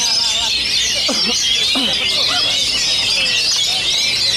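Dense chorus of caged oriental magpie-robins (kacer) singing at once: fast overlapping chirps, trills and high whistles with no pause. Two lower swooping sounds come about one and two seconds in.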